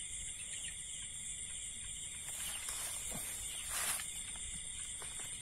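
Night insect chorus, a steady high-pitched chirring. A brief rustle comes about four seconds in.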